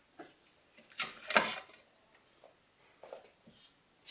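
A 3D printer's build plate being slid out of the print bed by hand: a few soft scrapes and light knocks, loudest about a second in.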